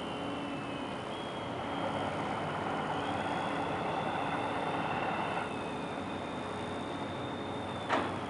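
Machinery running steadily with a high, slowly shifting whine over a constant rumble, and one sharp knock near the end.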